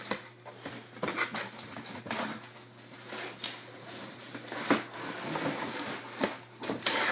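Cardboard packaging being handled as a toy box is opened: irregular scraping, rustling and tapping of cardboard, with a few louder knocks.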